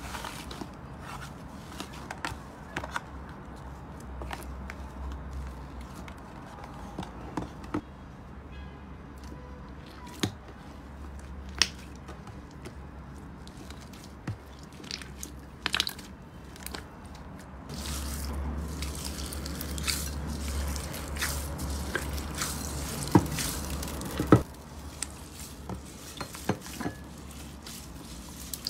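Slime being pressed, squeezed and poked by hand, giving soft squishing and scattered sharp pops and clicks over a low steady hum. The sounds grow denser and louder in the second half.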